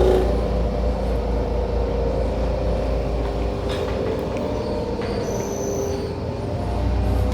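Steady low machine hum with a few held tones over it, and a faint high whine for about a second, around five seconds in.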